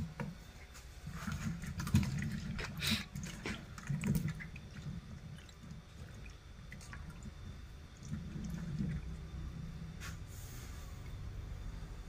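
A hand stirring and turning wedges of Thai eggplant in a pot of salted water, with sloshing, splashing and small knocks of the pieces. The splashes bunch in the first few seconds and come once more near the end, over a low steady rumble.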